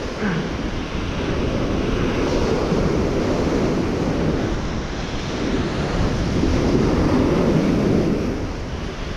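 Ocean surf washing up a beach, swelling louder and easing off twice, with wind rumbling on the microphone.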